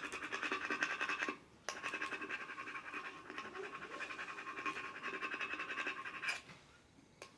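Fingers rubbing vinyl decal letters down onto a metal tumbler: fast, even, scratchy strokes that stop briefly about a second in and again near the end. The letters are being burnished because they won't stick to the cup.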